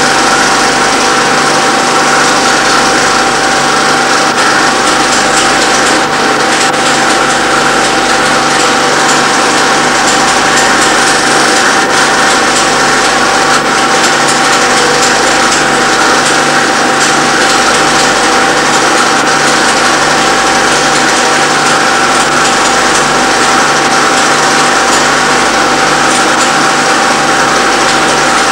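Film projector running: a loud, steady mechanical whir with a constant whine, unchanging throughout.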